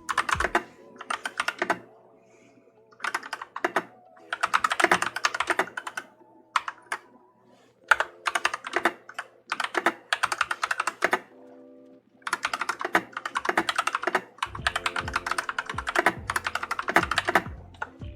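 Fast typing on an AKKO Tokyo World Tour 3087 mechanical keyboard fitted with Cream Yellow switches: runs of rapid keystroke clicks lasting a second or two, broken by short pauses.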